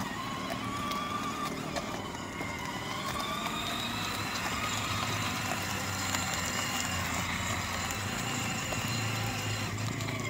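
Kids' electric ride-on buggy driving on asphalt: its motors and gearboxes give off a whine that slowly rises and falls in pitch, over the rough rolling of its plastic wheels.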